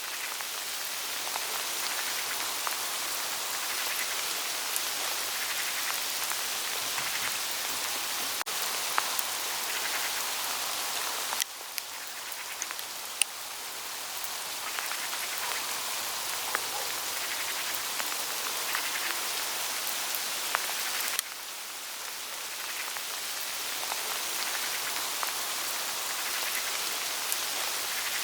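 Small hail falling on autumn forest leaves: a dense, steady hiss of countless light strikes with scattered sharper ticks. The level drops abruptly twice, about 11 and 21 seconds in, then builds back up.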